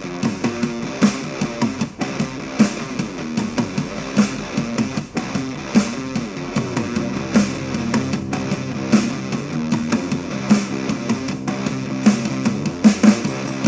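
Alternative/punk rock song with distorted electric guitar and drums on a steady beat, played back through a portable Bluetooth speaker in a sound test.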